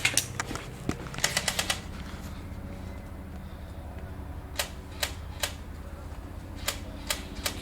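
Airsoft guns firing: a quick burst of about six shots a little after a second in, then later two runs of three single shots in quick succession.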